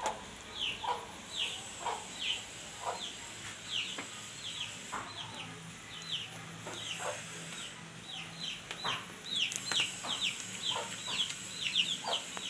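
Chickens calling: a steady run of short, high, falling peeps, about two a second, coming faster and closer together in the last few seconds.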